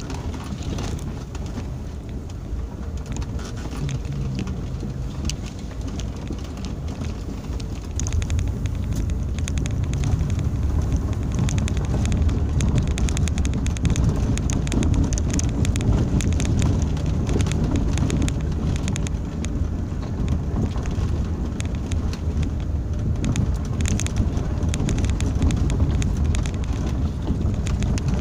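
Inside the cabin of a 2001 Hyundai Santa Fe 4x4 driving along a rutted dirt and gravel track: a low rumble of engine and tyres with frequent clicks and knocks from the rough ride, getting louder about eight seconds in.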